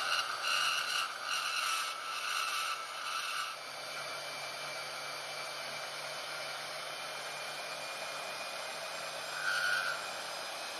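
Bauer bandsaw cutting an aluminum plate, the motor running steadily with a high whine from the blade in the metal that comes and goes in pulses for the first three or so seconds, then a steadier, lighter cut, with one more short whine near the end.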